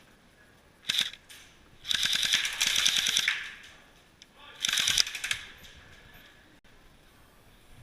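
Airsoft gun firing rapid full-auto bursts: a short burst about a second in, a longer one of about a second and a half, then another short burst near five seconds.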